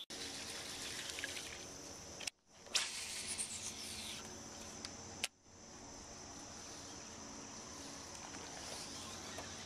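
Steady outdoor ambience with insects droning in an even, high tone, cut off briefly twice.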